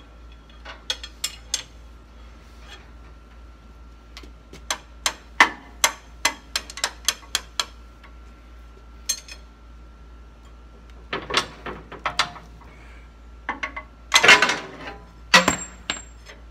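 Irregular metallic clicks and clinks in clusters, with a louder rattling clatter about fourteen seconds in, as a tie-down is worked loose by hand from a skid steer's lift arm and hydraulic lift cylinder.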